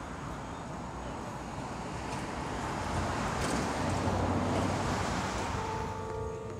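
Outdoor noise, with wind rumbling on the microphone and a steady traffic-like hiss that grows louder about halfway through. About a second before the end, a few held musical tones start.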